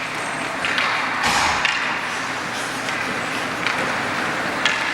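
Ice hockey game at a rink: scattered sharp clacks of sticks and puck over a steady hubbub of skating and the arena.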